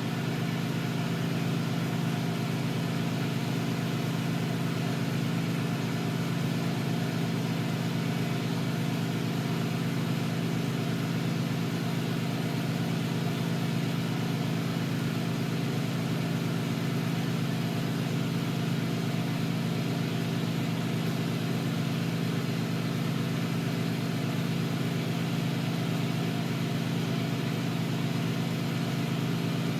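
Steady machine hum from a running motor, an even low drone with a constant pitch and no change throughout.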